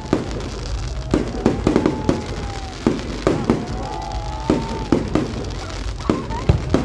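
Aerial fireworks going off: loud, irregular bangs and crackling bursts, roughly two a second, over a steady low rumble. A few long whistles glide up and down in pitch.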